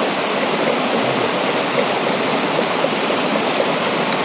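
Shallow river rushing over rocks and small rapids, a steady, loud water noise.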